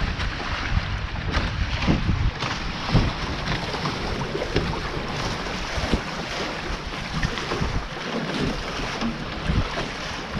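Wind buffeting the microphone over the rush of water along the hulls of a Taipan 5.7 catamaran under sail, with a few brief splashes of spray.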